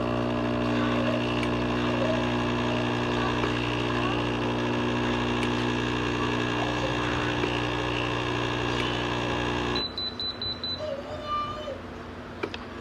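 A steady machine hum that cuts off suddenly about ten seconds in, followed at once by a quick run of short high beeps.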